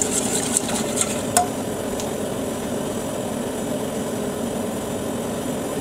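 A wire whisk scraping a few strokes around a stainless-steel saucepan of thin flour-and-sugar batter, then a single metallic clink about a second and a half in as it is set down against the pan. After that only a steady rushing noise remains.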